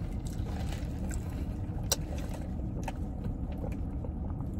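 Steady low hum inside a parked car, with one sharp click about two seconds in.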